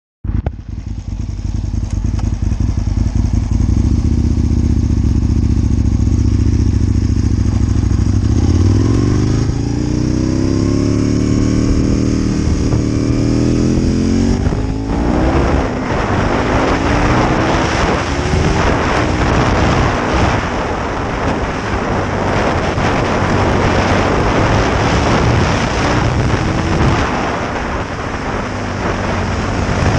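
Aprilia Tuono 1000 R's 60° V-twin engine: a steady low note for the first several seconds, then rising revs as the bike pulls away and accelerates through the gears from about 8 seconds in. From about halfway, heavy wind buffeting on the microphone largely covers the engine.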